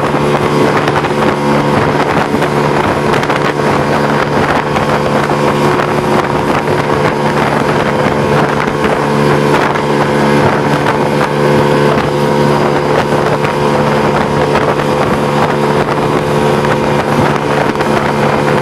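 Outboard motor of a small open boat running at a steady cruising speed under way, a constant even drone with a rush of wind and water over it.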